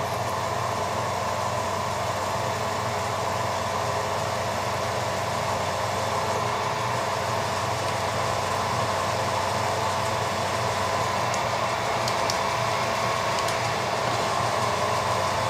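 Milling machine spindle running steadily with a constant whine while a twist drill bores into a steel part held in the vise.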